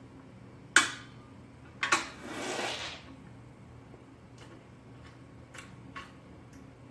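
Coin drawer of a gumball vending machine being pushed into place: a sharp knock, then a second knock with about a second of scraping as it slides in, followed by a few faint clicks.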